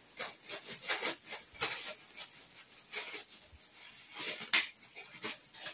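A small dog chewing and tugging at a piece of crumpled gold foil, the foil crinkling in irregular crackles, with one louder crackle about four and a half seconds in.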